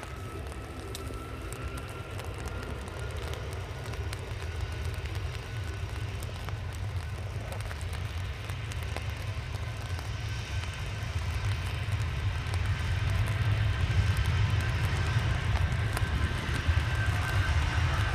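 Airbus A330 twin jet engines running on a wet runway, a low rumble growing steadily louder with a thin whine rising slowly in pitch.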